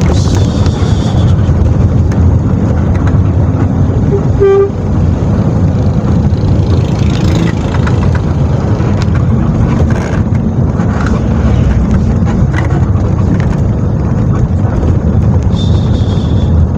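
Intercity bus under way, its engine and road noise a steady low drone heard from inside the cabin, with a short horn toot about four and a half seconds in.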